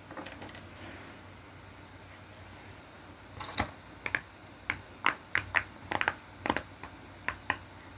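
A fidget toy being worked by hand, giving a dozen or so sharp clicks and pops at uneven intervals over the second half.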